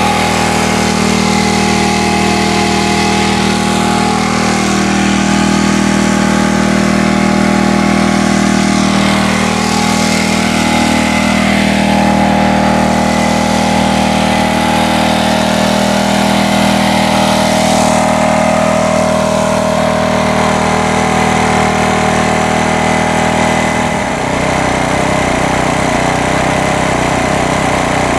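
Small engine of a portable generator running steadily, its note changing abruptly near the end.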